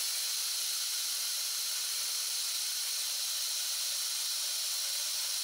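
Keimling PB 150 personal blender running steadily, blending grated pumpkin with water: an even, hissy whir with a faint hum that sinks slightly in pitch in the second half.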